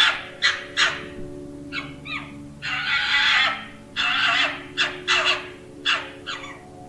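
A series of short, harsh animal calls, one after another, with a few sharp clicks between them.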